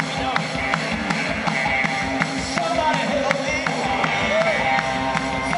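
Live rock band playing, with a steady drum beat, electric guitar and organ.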